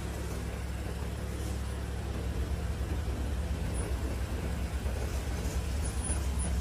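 Industrial multi-needle mattress border quilting machine running: a steady low mechanical hum that grows a little louder and more pulsing about two seconds in.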